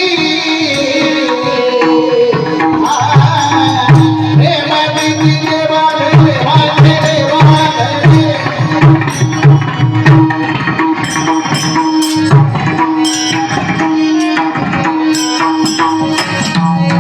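Instrumental passage of kirtan music: hand drums play a rhythmic pattern of deep strokes and sharp strikes over a steady held drone note. The strikes come thicker in the second half.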